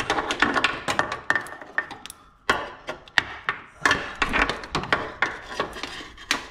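Irregular clicks, knocks and rubbing of gear being handled and repositioned, with a short lull about two seconds in.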